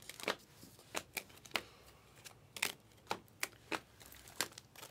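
A stack of glossy chromium basketball trading cards being flipped through by hand. Each card is slid off the pile with a short, crisp snap, about a dozen of them at an uneven pace.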